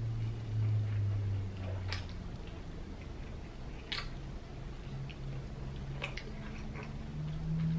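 A person chewing a mouthful of burger and taking another bite, with a few short, sharp mouth clicks about two seconds apart over a low steady hum.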